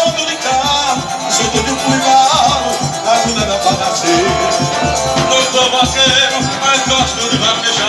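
Loud forró music playing, instrumental, with a steady pulsing bass beat under a melody line.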